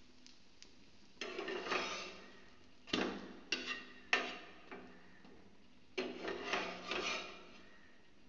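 A spatula scraping and clacking against a nonstick frying pan as it works under a slice of egg-fried bread and lifts it out. There are three bursts of scraping about a second in, around three to four seconds and around six to seven seconds, with sharp clicks in the middle burst.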